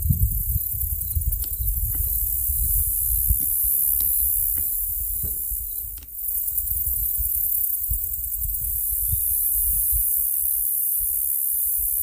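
Wind buffeting the microphone in a low, uneven rumble, over a steady high-pitched insect drone from the meadow, with a faint chirp repeating about twice a second. A few light clicks come in the first half, and the sound drops out briefly about halfway.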